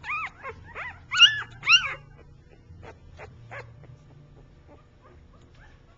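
One-week-old puppy whimpering: a quick run of high-pitched squeaks, each rising then falling in pitch, loudest just over a second in, then only faint squeaks and clicks.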